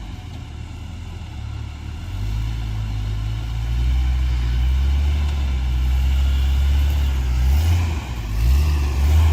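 Off-road vehicle's engine running under load on a rough trail, a low drone that grows louder about two seconds in and dips briefly twice near the end.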